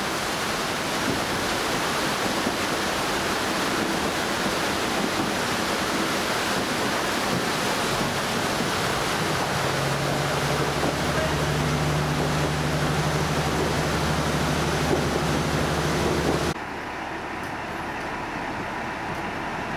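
Heavy rain and wind noise inside an open-air trolley car, with the diesel railcar's engine humming steadily under it from about halfway through. About three-quarters of the way in, the sound drops abruptly to a much quieter background.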